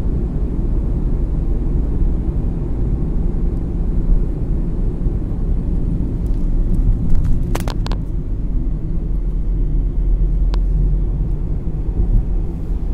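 Car driving along a highway, heard from inside the cabin: a steady low rumble of road and engine noise. A few brief clicks come about seven and a half seconds in and again near the end.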